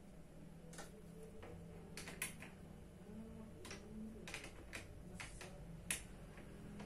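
Office chair parts being handled and fitted under the seat: scattered light clicks and knocks, two sharper ones about two and six seconds in, over a faint steady low hum.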